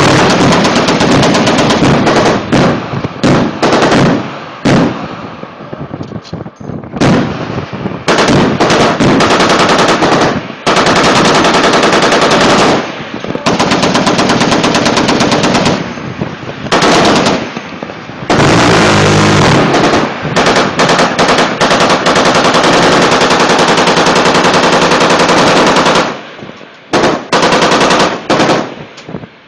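Navy shipboard machine guns firing long bursts of rapid fire, each lasting several seconds, with short breaks filled by scattered shots; the longest burst runs about eight seconds in the second half.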